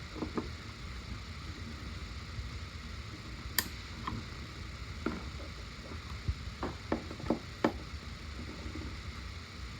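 Scattered clicks and light knocks of plastic dispenser parts being handled and pressed, the sharpest about a third of the way in, over a steady low hum.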